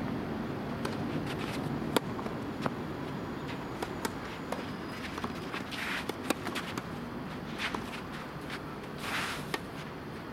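Tennis rally: sharp pops of rackets striking the ball, the loudest about two seconds in, with players' footsteps and a couple of longer shoe scuffs on the court.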